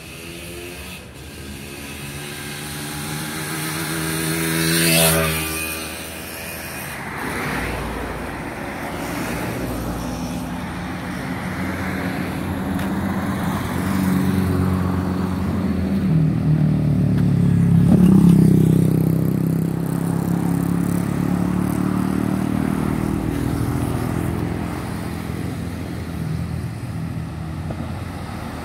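Road traffic passing close by. One vehicle goes by about five seconds in, then engine noise from more traffic builds to its loudest about eighteen seconds in and eases off.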